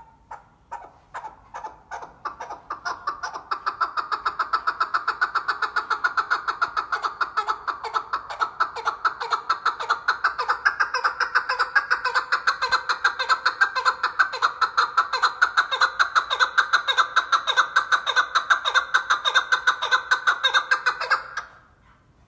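Chukar partridge calling: a long series of clucking notes that starts slow and separate, then speeds up and grows louder into a rapid, steady chatter that runs on for many seconds before stopping abruptly.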